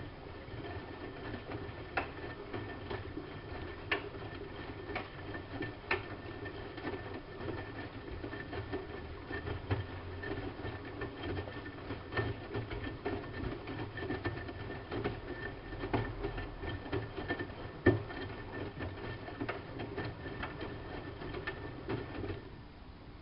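Siemens Siwamat IQ washing machine running its drum motor, a steady hum and faint whine with scattered clicks and knocks every second or two. The motor stops near the end.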